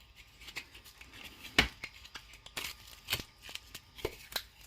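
Scattered light clicks and knocks of 3D-printed plastic parts being handled and unwrapped, with one sharper knock about a second and a half in.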